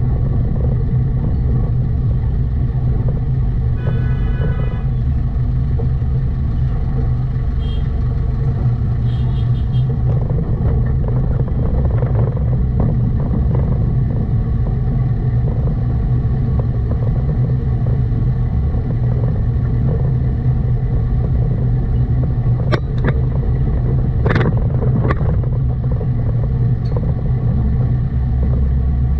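Car driving through city streets: steady low rumble of engine and road noise, with a short run of high beeps about four seconds in and a few sharp clicks near the end.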